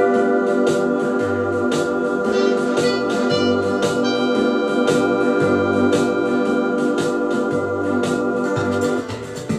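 Kawai XR9000 electronic organ playing held chords over a bass note that pulses at an even pace, with light percussion strokes keeping a steady beat. The sound thins out about nine seconds in.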